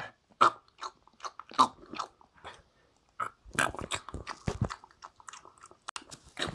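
Irregular crunching and chewing sounds close to the microphone: a run of sharp crackly clicks and short bursts, standing for a toy dog eating chocolate.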